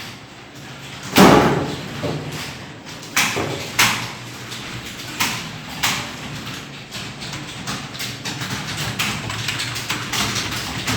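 Computer keyboard being typed on: a few separate key strokes a second or so apart, the first a heavy thump, then steady fast typing from about eight seconds in.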